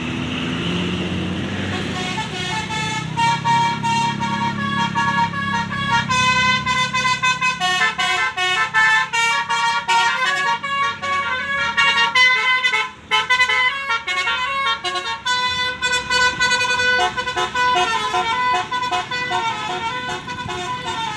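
A bus's telolet basuri musical horn playing a fast tune of short stepped notes, starting about two seconds in and pausing briefly near the middle, over the bus's engine running.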